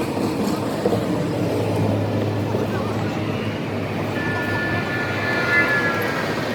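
Steady vehicle noise, with a low hum in the first half and a high, slightly falling whine from about four seconds in until just before the end.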